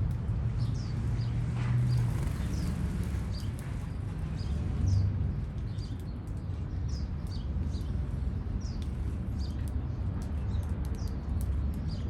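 Birds chirping: many short, high chirps, scattered irregularly, over a steady low rumble of city background noise.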